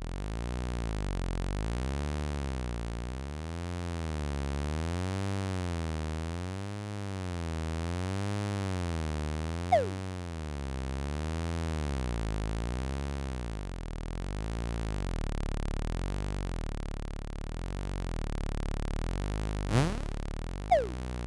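Electronic synthesizer drone with a wavering pitch, swelling and fading in slow waves. Short, quick pitch-sweep sound effects cut through it about halfway in and twice near the end.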